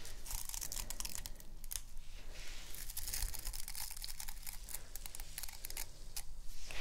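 Bristles of a round hairbrush scratched and brushed close against the microphone, a dense crackle of fast, fine scratchy clicks that is brightest about halfway through.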